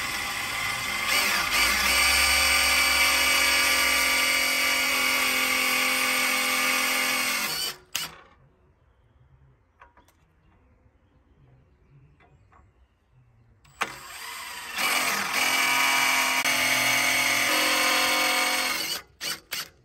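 Power drill running at a steady speed for about eight seconds, stopping abruptly, then running again for about five seconds, with a few faint clicks in the pause.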